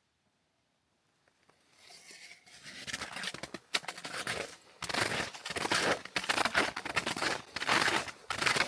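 Footsteps crunching in snow at a steady walking pace, fading in after a short silence.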